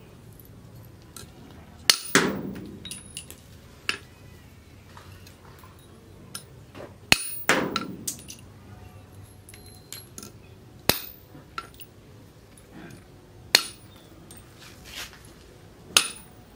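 Leaf-spring steel machete blade chopping through steel nails laid on a steel post: sharp metallic clinks, one strike every one to three seconds, several with a brief ring.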